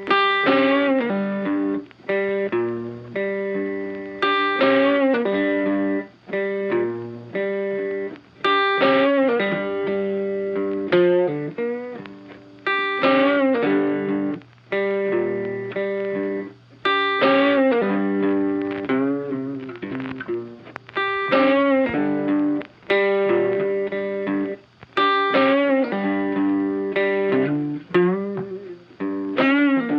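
Funky background music in short repeating phrases, with brief drops in loudness every few seconds.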